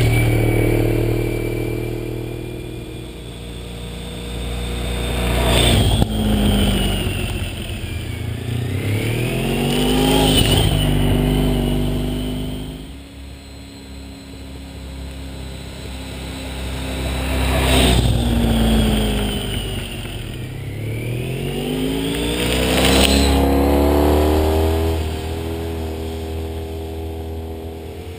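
Honda ST1300's V4 engine with Staintune mufflers making repeated fly-bys: the exhaust note swells as the bike approaches, drops in pitch as it goes past, and fades, with revs rising and falling in between.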